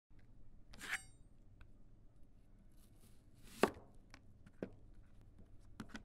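Chef's knife chopping onion on a cutting board: scattered, unevenly spaced knocks of the blade through the onion onto the board, the loudest about three and a half seconds in. A brief rasp with a ring to it comes about a second in, over faint room tone.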